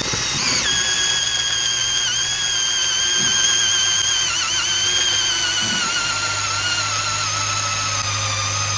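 Cordless drill turning a small, dull homemade hole saw through a weathered pressure-treated fence board: a steady motor whine whose pitch sags slowly under load, with brief wobbles, as the cut nears all the way through.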